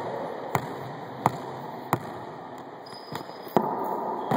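A wallyball, a soft rubber ball, being hit and bouncing off walls and floor inside an enclosed court: a series of separate sharp smacks, about five in all, with a low murmur of the room between them.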